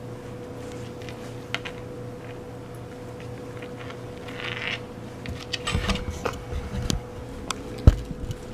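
Steady faint hum, then about five seconds in a run of rustling, knocks and clicks close to the microphone, with one sharp thump near the end: a cat bumping into the camera and the items around it.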